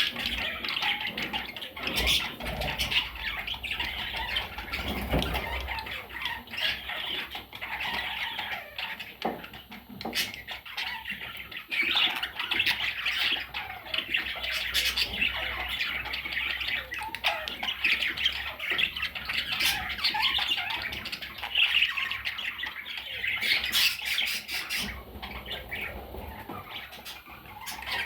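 A group of budgerigars chattering continuously, with louder squawks scattered through it.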